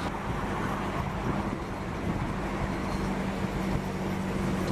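Steady engine and road noise of a car driving, with a low steady hum underneath.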